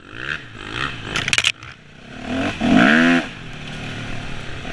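Enduro dirt bike engine revving up and dropping back in bursts while climbing a rough trail, the strongest rev about three seconds in. A brief harsh rush of noise comes about a second in.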